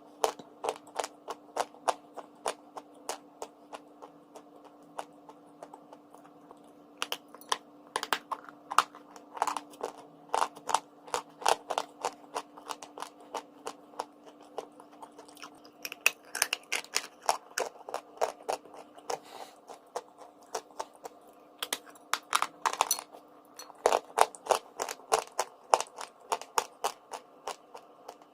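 A person biting and chewing pieces of crunchy chalk and clay close to the microphone: quick runs of sharp crunches, several a second, broken by short pauses. A steady low hum runs underneath.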